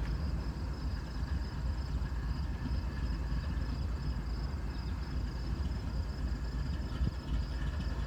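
Stopped train idling: a steady low rumble with no change through the stretch, and a faint, rapidly pulsing high-pitched hum above it.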